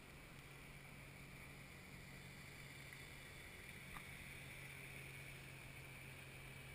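Near silence on the water: a faint steady hum and hiss with one small click about four seconds in.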